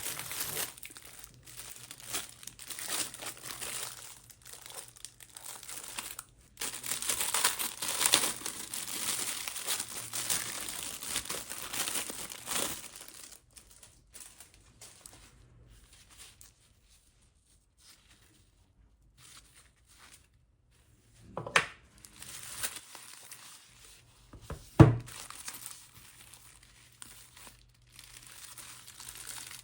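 Smartphone retail box being unboxed by hand: plastic film and paper crinkling and tearing, then quieter handling and two sharp knocks, the second the loudest.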